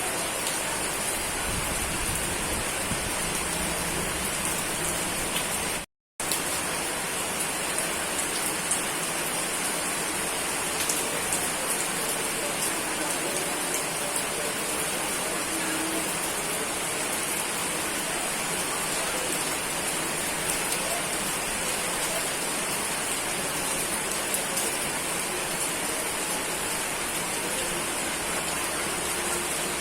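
Steady rain falling, an even hiss with scattered drop ticks. It cuts out completely for a moment about six seconds in.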